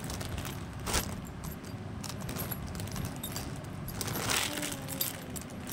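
Cloth rustling as a white top is handled and folded by hand, with light clinking of the bangles on the wrists. The rustles come in short spells, at about a second in and again near four seconds.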